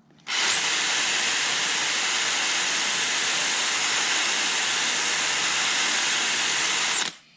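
Cordless drill spinning an abrasive flap wheel inside the bore of a turned lampshade part, sanding it out to relieve a too-tight fit. A steady high motor whine rides over the sanding hiss; it starts just after the beginning and cuts off shortly before the end.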